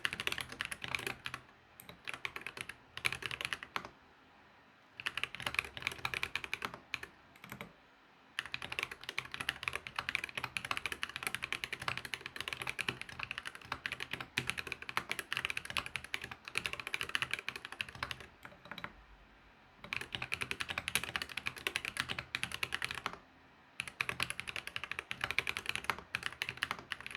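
Fast typing on an ID67 mechanical keyboard with an acrylic bottom, Akko Cream Yellow V3 Pro linear switches and Akko keycaps: quick runs of keystroke clacks broken by a few short pauses.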